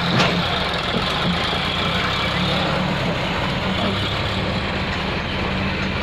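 Sonalika tractor's diesel engine running steadily as it pulls away hauling a trolley loaded with mud. A short sharp sound stands out just after the start, and a thin high whine runs through the first couple of seconds.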